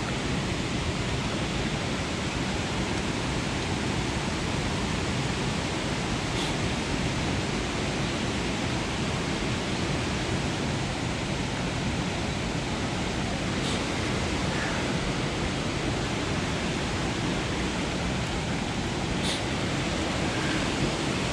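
Mountain creek water rushing steadily over rocks, with a few faint short ticks.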